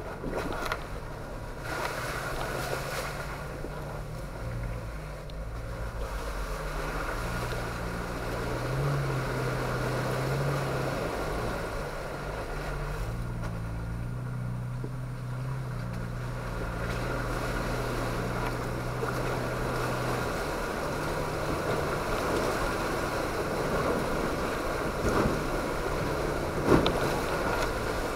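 Jeep engine running at crawling speed, its pitch stepping up and down, with water and mud sloshing under the tyres as it drives through a flooded trail. A sharp knock near the end.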